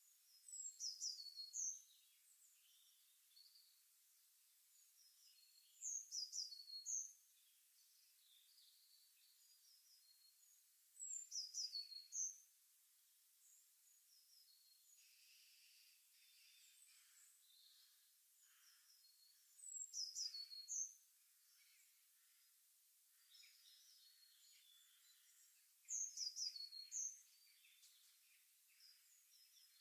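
A songbird repeating a short phrase of quick, high, falling chirps about once every five seconds, five times in all, over a faint crackling sizzle of fritters deep-frying in oil.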